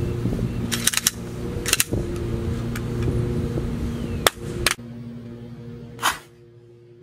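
A handgun fitted with a miniature red dot optic dropped from shoulder height onto concrete for a durability drop test, hitting with a sharp clatter about four seconds in and knocking again near six seconds. A steady machine hum runs underneath, with a few lighter clicks early on.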